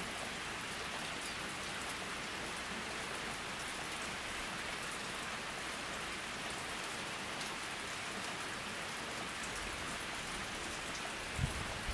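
Steady rain falling on a pond and the trees around it: an even hiss with fine pattering of individual drops. A brief low thump near the end.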